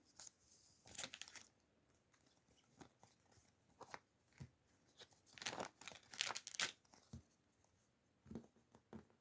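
Faint crinkling and tearing of plastic packaging being handled and opened, in scattered short crackles that cluster into a busier run in the middle.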